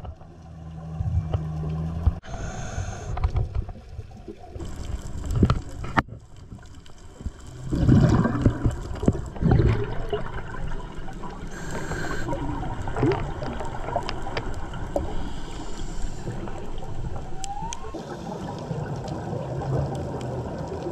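Underwater sound from a dive camera: scuba divers' exhaled bubbles gurgling over a steady low rumble, with louder bursts of bubbling about a third of the way through and a few abrupt changes where the footage is cut.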